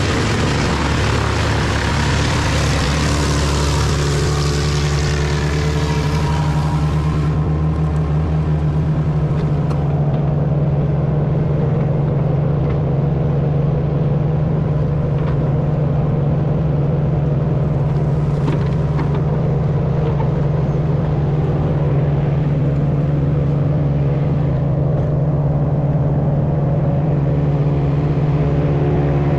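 Large wood chipper's engine running steadily under load. For about the first seven seconds a loud, harsh chipping noise of wood being shredded lies over it, then it eases to the steady engine drone.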